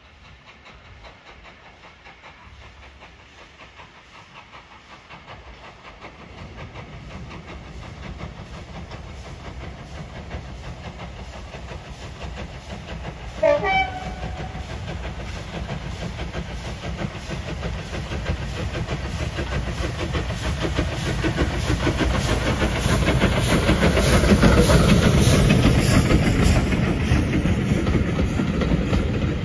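Steam locomotive hauling a train of coaches approaches and passes, its exhaust beats growing steadily louder as it nears. A short whistle blast sounds about halfway through, then the wheels clatter over the rail joints as the coaches go by.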